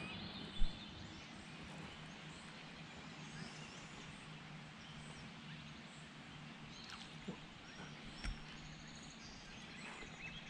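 Faint outdoor ambience with small bird chirps, broken by a few short knocks: one a little under a second in and two softer ones about three-quarters of the way through.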